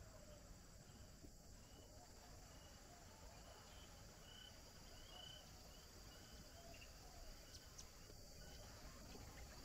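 Near silence: quiet open-air ambience with faint, short high chirps from a small creature repeating about twice a second through the middle of the stretch.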